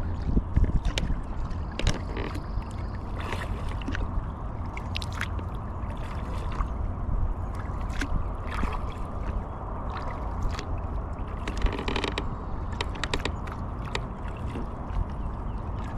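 Paddling a kayak on calm water: paddle blades dipping and dripping, with scattered light clicks and knocks, over a steady low rumble.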